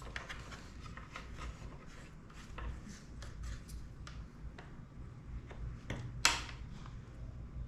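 Small drone parts being handled during reassembly: light clicks and rubbing, with one sharper click about six seconds in.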